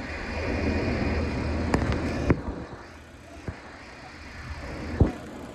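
ED76 electric locomotive pulling a freight train away at close range: a low rumble that is loudest for the first two seconds, then fades. Several short, sharp knocks from the running gear come through at uneven intervals.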